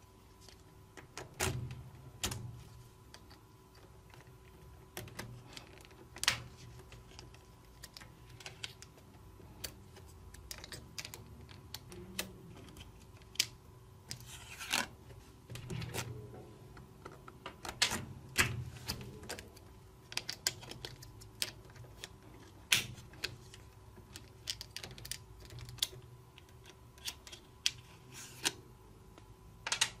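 Small magnetic balls clicking as they snap together and are pressed and shaped with a plastic card: irregular sharp clicks, a few louder than the rest.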